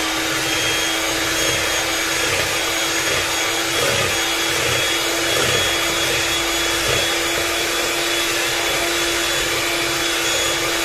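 Bajaj Majesty HM01 electric hand mixer running at a steady speed, its twin steel beaters whipping chilled cream in a stainless steel bowl: an even motor whine with the churning of the beaters.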